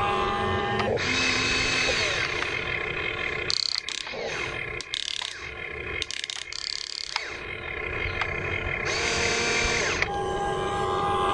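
Huina RC excavator's small electric motors whining in steady pitched tones as the boom, arm and bucket move, each whine starting and stopping as a movement begins and ends. The middle is quieter and broken, with a few sharp clicks.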